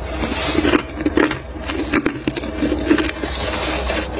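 Close-up, irregular crunching and chewing of freezer frost, with short clicks of a metal spoon against a stainless steel bowl.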